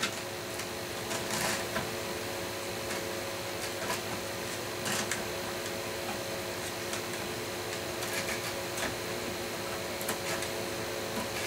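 Small electric motor of a model diesel locomotive whirring steadily as it runs on a test track, with scattered light clicks of the model being handled on the rails.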